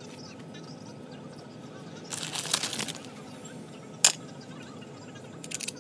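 Cloth rag rustling, then one sharp metal clink about four seconds in and a few lighter clicks near the end, as the carbon-brush holder assembly of a brushed 48 V golf cart motor is handled. A steady low hum runs underneath.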